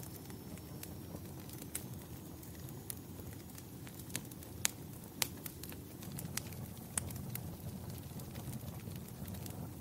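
Fire crackling: a steady low rumble with scattered sharp pops and snaps, the loudest two close together around halfway.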